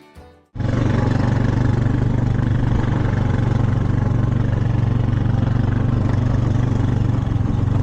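A motor engine running steadily at constant speed, loud and close to the microphone, cutting in abruptly about half a second in.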